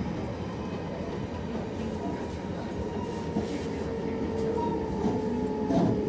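Running noise heard from inside a JR Hokkaido 733 series 3000 subseries electric train: wheel and rail rumble with the thin, steady whine of its Mitsubishi IGBT VVVF inverter drive. A second, lower inverter tone joins about halfway. The inverter tone carries into the cabin because the fully enclosed traction motors need no cooling blowers.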